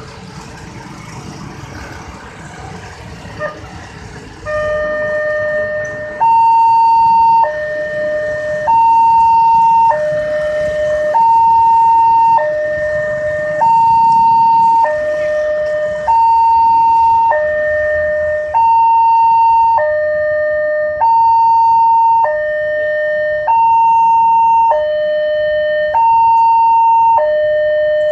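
Railway level-crossing warning siren on a horn loudspeaker: a two-tone hi-lo alarm that swaps between a low and a high tone about every second and a quarter. It comes in a few seconds in and gets louder soon after. It is the crossing's newly replaced siren, warning that a train is approaching.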